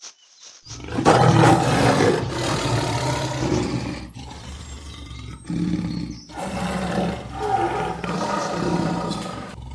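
Big cats roaring and growling in a fight. The sound starts about a second in and carries on with a few short breaks.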